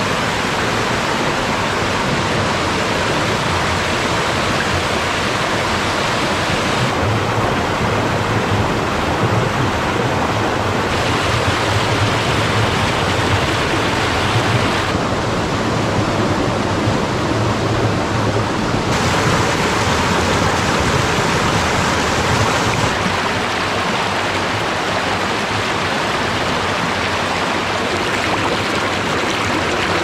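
Mountain valley stream rushing, a loud steady wash of water. Its tone turns abruptly brighter or duller about every four seconds.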